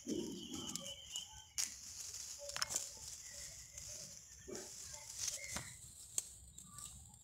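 Short, scattered bird calls with a few sharp clicks, and rustling of chilli plant leaves as ripe chillies are picked off by hand.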